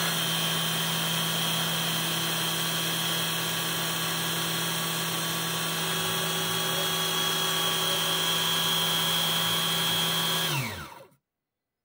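Spindle of a 1310 CNC engraver, driven by an offset motor through a reduction belt, running with a steady whine while a small end mill cuts a brass plate. About ten and a half seconds in, the pitch drops as the spindle is stopped, and the sound cuts off.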